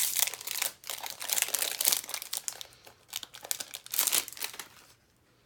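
A foil trading-card pack wrapper crinkling as it is torn open. The crackling stops shortly before the end.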